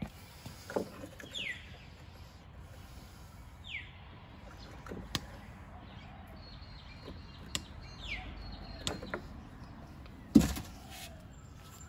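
Light clicks and knocks of hands handling the tail-light bulb holders and wiring inside the car's tail-light recess, with one louder thump about ten seconds in. A few short falling chirps sound now and then.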